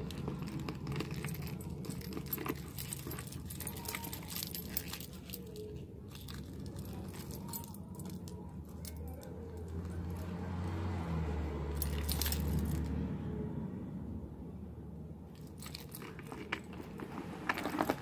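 Cluster of metal charms, keys and beads on chains jingling and clinking as it is handled, in bunches of small clinks over the first few seconds, again around the middle and near the end. A low hum runs under the middle part.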